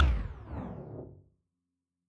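Background music ends, its last notes dying away over about a second with a faint falling sweep, then silence.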